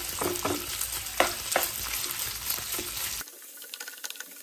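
Boneless chicken pieces sizzling in hot oil in a nonstick frying pan on high heat, with a wooden spatula stirring and knocking against the pan a few times. About three seconds in the sizzle drops to a quieter hiss.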